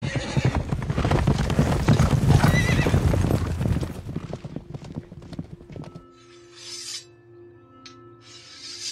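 Hoofbeats of several ridden horses, with a horse whinnying about two and a half seconds in. The hoofbeats fade away over the next few seconds, leaving a low held music drone with two short hissing swooshes near the end.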